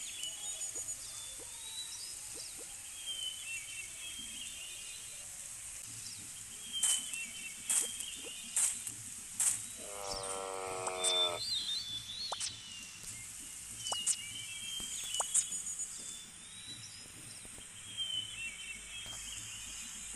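Nature sound-effect bed with short bird chirps repeating every few seconds and a few sharp clicks, and one drawn-out animal call about ten seconds in.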